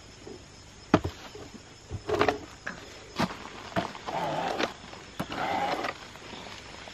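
A few scattered sharp knocks and short scraping sounds, with no chainsaw or motor running.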